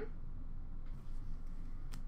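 Low steady room hum with a few faint ticks of trading cards being handled, the clearest a light tap just before the end as a card is set down on the counter.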